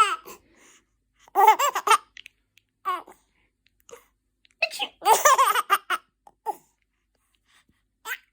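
Four-month-old baby laughing in repeated high-pitched bouts, with bigger bursts about a second and a half in and again around five seconds, and short chuckles between.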